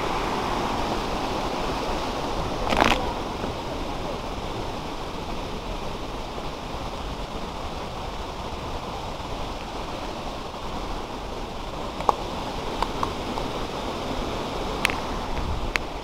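Steady rushing of a tiered waterfall and its rocky stream, slightly louder at first. A short louder burst of noise comes about three seconds in, and a few sharp clicks or snaps near the end.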